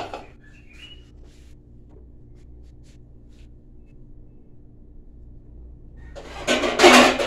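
A faint steady kitchen hum, then, about six seconds in, a loud rustling clatter lasting about a second as things are moved around in a low kitchen cupboard.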